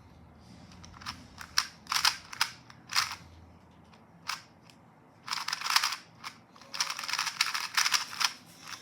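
GAN 251 M Leap magnetic 3x3 speedcube being turned fast during a solve: quick plastic clicks of the layers snapping into place, scattered at first, then dense runs of rapid turns about five and seven seconds in.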